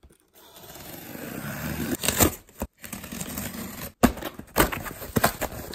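Scissors slitting the packing tape on a cardboard box: a scrape that grows louder over the first two seconds. Then comes a string of sharp rips and snaps as the tape and cardboard flaps are pulled open.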